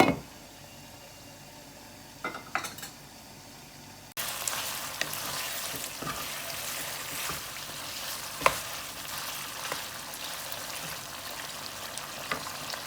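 Chicken frying in a covered pan: quiet, muffled sizzling for the first four seconds, then an abrupt jump to louder, brighter sizzling. A few sharp clicks, like a utensil on the pan, stand out over the sizzle, the loudest about eight seconds in.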